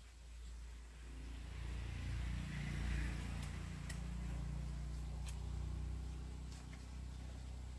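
A low engine hum that grows louder over the first three seconds and then runs steadily, with a few faint ticks.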